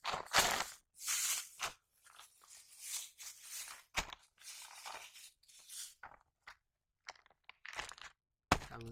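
Hands squeezing and kneading a husk-flecked ball of fishing bait on a woven plastic sack, making crunchy rustling handling noises in irregular short bursts with brief silent gaps.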